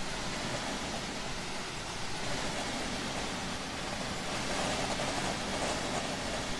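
Steady road and wind noise inside the cab of a semi-truck cruising at highway speed, an even rushing hiss.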